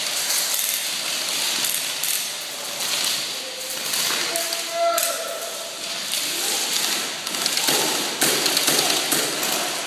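Airsoft guns firing in scattered clicking taps, with voices in the background.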